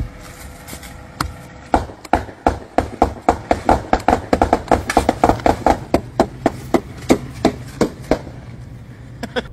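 A long line of clear plastic pockets popping one after another under a car's tyre, a quick run of sharp pops about three or four a second, over the low hum of the car's engine.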